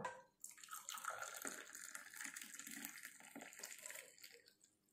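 Hot masala chai poured from an aluminium pot through a metal tea strainer into a small glass: a short knock as it begins, then a steady splashing trickle as the glass fills, which stops shortly before the end.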